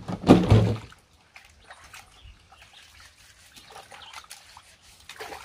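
Water splashing loudly in a plastic bucket for about the first second, then faint sloshing and rubbing as sweet potatoes are scrubbed by hand in the water.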